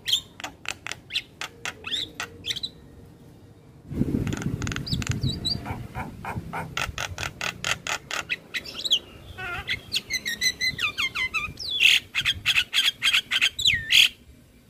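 Javan myna singing: runs of sharp chirps at about four a second, mixed with whistled notes that glide up and down, the loudest chirps near the end.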